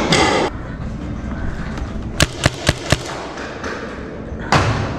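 Paintball markers firing a quick string of about five shots within about a second, sharp pops that come around two seconds in. Short rushes of noise come at the start and again near the end.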